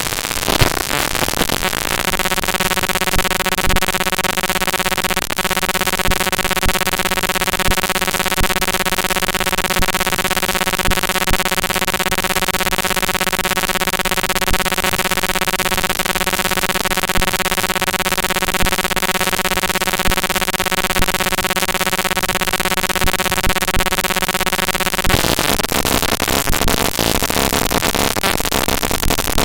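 Raw network packet-capture data played straight out as audio samples, making harsh digital noise. About two seconds in it settles into a steady buzzing drone with many evenly spaced overtones over a hiss. Near the end it breaks back into jumbled crackling noise.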